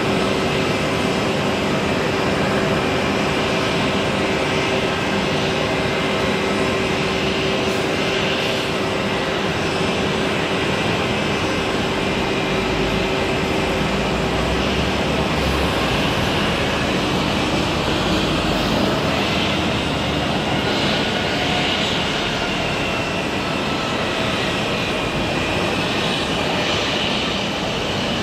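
Jet engines of an Airbus A320 (IAE V2527-A5 turbofans) running with a steady, loud rushing noise and a high whine. A low steady tone underneath stops about halfway through.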